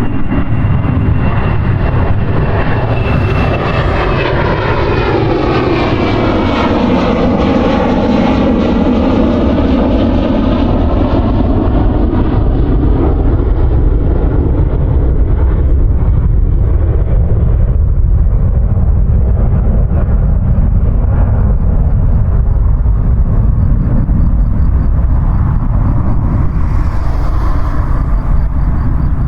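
Airplane taking off and climbing past: a loud, steady engine roar with a high whine that falls in pitch in the first few seconds, and a sweeping, phasing tone as it passes before slowly thinning into a low rumble.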